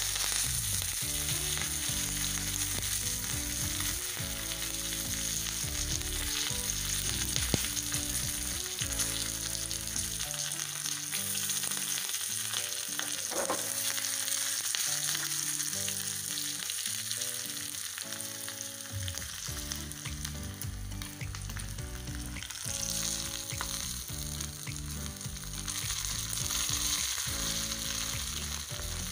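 Curry leaves and green chillies sizzling and spluttering in hot oil in a small tempering pan, for a tadka. The sizzle starts abruptly as the leaves hit the oil and keeps on as a dense hiss.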